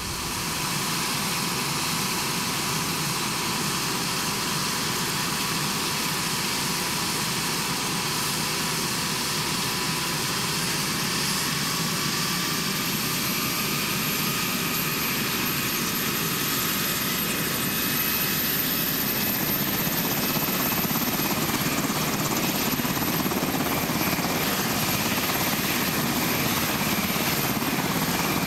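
Sikorsky S-70B-2 Sea Hawk helicopter running on the ground with its rotors turning: a steady turbine whine over the rotor noise. The whine rises slightly in pitch about halfway through, and the sound gets a little louder after that.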